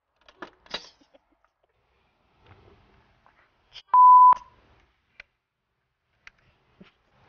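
A few small clicks and knocks near the start as a golf ball comes out of a ball dispenser's chute, then, about four seconds in, a single loud electronic beep: one steady high tone lasting under half a second.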